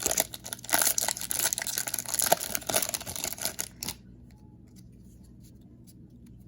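Trading-card pack's foil wrapper being torn open and crinkled in the hands, a busy crackling rustle that stops about four seconds in.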